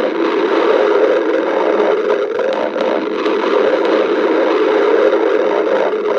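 A hungry human stomach growling: a steady, continuous low rumble with faint scattered clicks.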